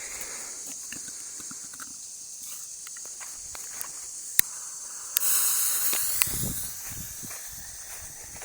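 A consumer ball-shell firework going off at its mortar tube: a sharp pop a little over four seconds in, then about a second later a sudden loud hiss that fades over about two seconds.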